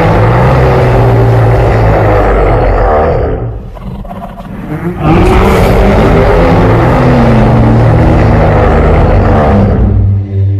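Two long, loud giant-monster roar sound effects with a deep, wavering pitch. The first fades about three seconds in; the second starts about five seconds in and lasts about five seconds.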